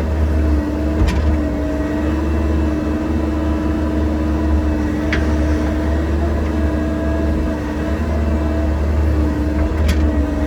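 Excavator's diesel engine running steadily, its pitch dipping and recovering slightly as it works. Three faint sharp ticks come at roughly four-second intervals.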